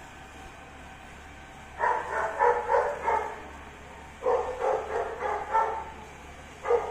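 A dog barking in two quick runs of rapid barks, the first about two seconds in and the second about four seconds in, with one more bark near the end.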